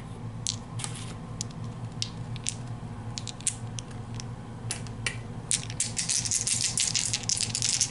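Board-game dice clicking together as they are gathered by hand. From about five and a half seconds in they are rolled, clattering across the game board in a dense run of clicks.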